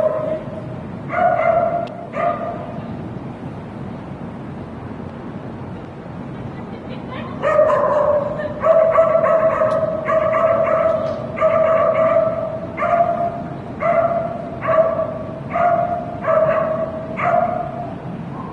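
Icelandic sheepdog barking: two drawn-out, high barks about a second in, then a quick string of about a dozen more from about seven and a half seconds until near the end.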